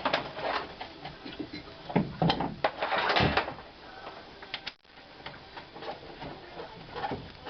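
Irregular clicks, knocks and light metal clatter of hand work as a nut is fitted onto the top mount of a new rear strut assembly, busiest about two to three seconds in.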